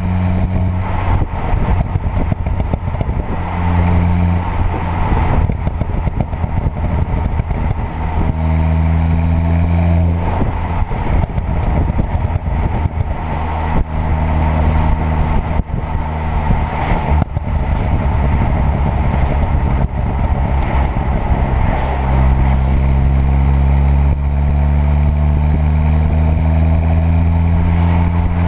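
A tuned 2.0 TFSI turbocharged four-cylinder car driving. Its engine and exhaust drone at steady revs in several stretches, the longest near the end. Between them come rapid crackles and pops from the exhaust, typical of lifting off the throttle on overrun.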